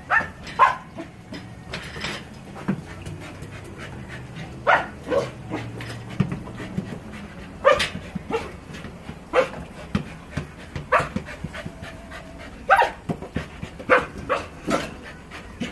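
A dog barking in short, sharp barks, about a dozen at uneven intervals, with panting between them.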